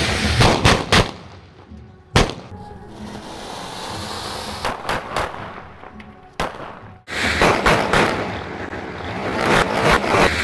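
Anar fire fountain hissing as it sprays while the firecrackers fixed to it burst: a few sharp bangs in the first second, one loud bang about two seconds in, scattered cracks after, and a louder spell of hissing and crackling in the second half.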